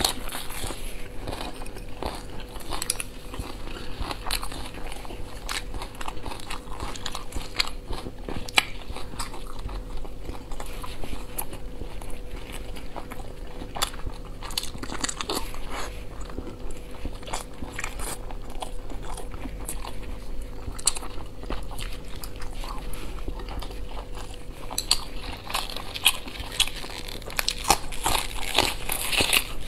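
Close-up chewing of boiled dumplings, with crisp crunching bites into a raw green onion stalk. The crunches are thickest at the start and again near the end.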